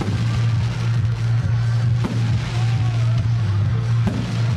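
Music playing alongside a firework display, with sharp firework bangs at the start, about two seconds in and about four seconds in.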